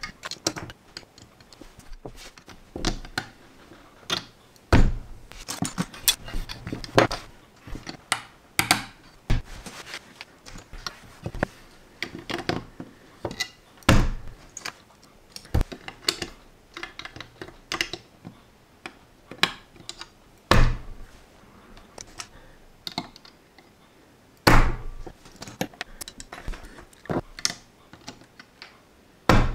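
Steel tweezers clicking and tapping on plastic LEGO bricks as pieces are picked up and pressed into place, in irregular small clicks with a few louder knocks against the table.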